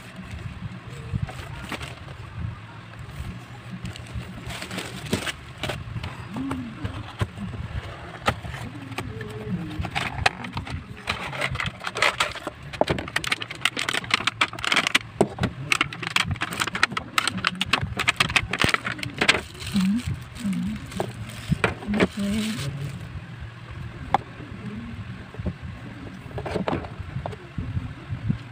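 Packaging being handled: a cardboard box and a plastic bag rustling and crinkling as a hair-straightener comb is unwrapped, the crinkling densest in the middle stretch. A steady low hum runs underneath.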